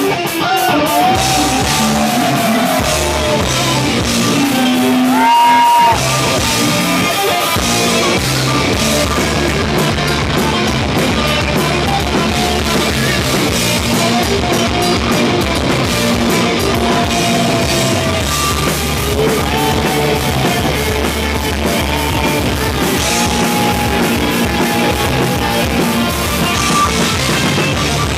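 Live heavy punk band playing at full volume: distorted electric guitars and a drum kit, with shouted vocals.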